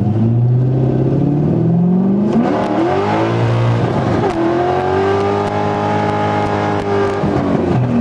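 Manual Corvette C5's 5.7-litre V8 accelerating hard from a standing start. The revs climb, drop with an upshift about two and a half seconds in, climb again, drop with another upshift a little past four seconds, then pull steadily.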